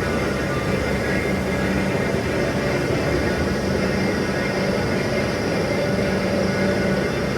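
Steady machine noise running without a break, with a constant low hum and several held higher tones.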